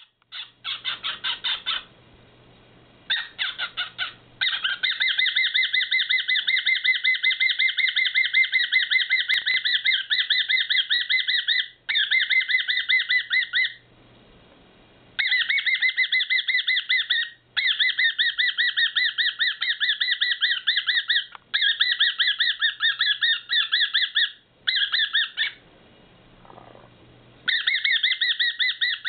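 Male whiteface cockatiel giving his rare excited call: long bouts of rapid, buzzy pulsed squawks broken by short pauses.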